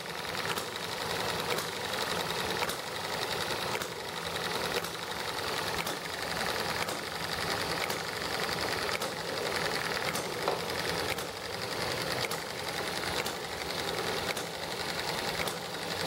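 ET1 model engine running free with no load on it, its drive belt to the generator taken off, making a fast, steady ticking clatter.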